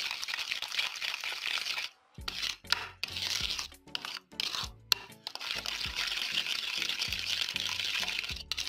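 A spatula scraping and stirring a thick cream-and-mayonnaise mixture around a bowl, in scratchy strokes with a couple of short pauses, over background music.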